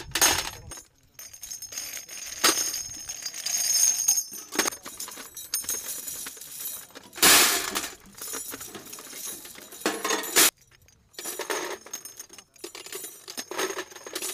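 Spent .50-calibre brass cartridge cases and steel belt links clinking and jingling as they are scooped up by hand and dropped into a metal ammunition can, in irregular handfuls.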